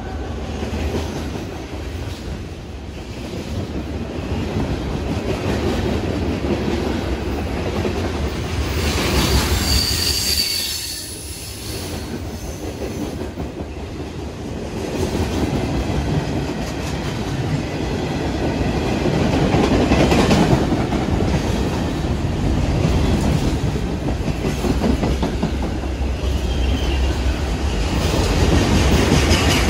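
CSX freight train cars rolling past close by, with a steady rumble of steel wheels on the rails and a clickety-clack over the rail joints. A brief high wheel squeal comes about ten seconds in.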